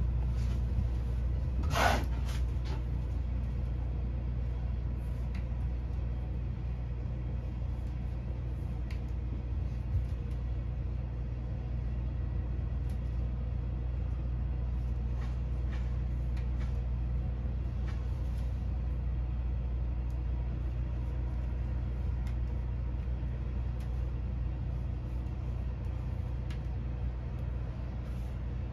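Steady low mechanical hum, with faint scattered clicks and a short louder sound about two seconds in.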